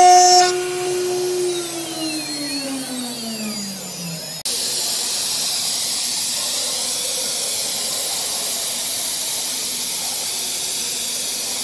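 CNC router's spindle running with a steady whine, then spinning down, its pitch falling steadily for a few seconds. After a sudden cut, a steady loud hiss fills the rest.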